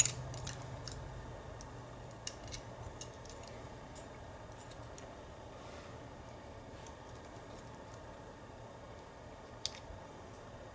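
Small metallic clicks and taps from a lock and its key being handled and worked on, several close together in the first seconds, then sparse, with one sharper click near the end.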